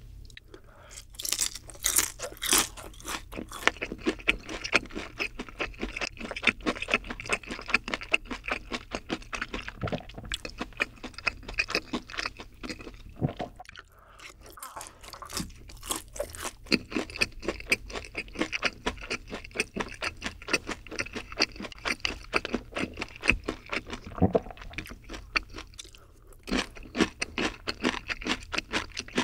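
Close-miked crunching and chewing of crisp, sauce-glazed spicy boneless fried chicken: a rapid, steady run of sharp crunches, broken by a short lull about halfway through before the crunching resumes.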